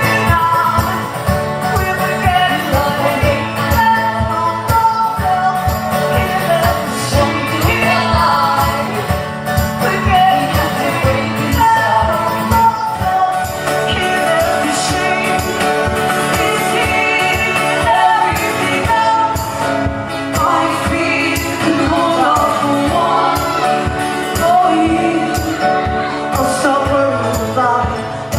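Live band playing a song: instruments keep a steady, even beat under sung melody lines.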